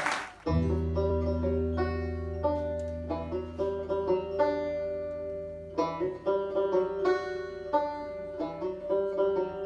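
Acoustic music on a plucked-string instrument: quick picked notes over a held low bass note, starting abruptly about half a second in.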